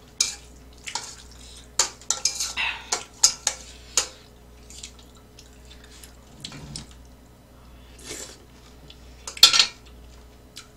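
Chopsticks and a metal spoon clinking and scraping against a stainless steel pan of noodles. Quick clinks come thick for the first few seconds, then a few scattered ones, the loudest near the end.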